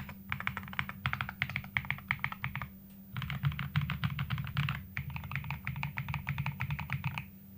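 Fast typing on a GKS68 60% mechanical keyboard with MMD Princess linear switches and PBT keycaps, its case dampened with neoprene and Poron foam for a muted sound. Rapid keystrokes come in bursts with short pauses and stop about seven seconds in.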